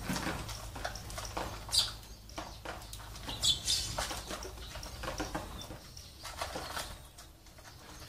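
Sparrows fluttering their wings as they land on and take off from hanging bottle feeders, a run of quick flaps, with a couple of short high chirps about two and three and a half seconds in.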